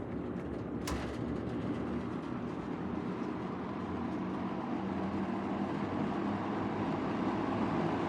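First-generation Lakewood S223 box fan, about 1977, running with a steady whir and a little rattle. A single sharp click comes about a second in, and the whir grows gradually louder.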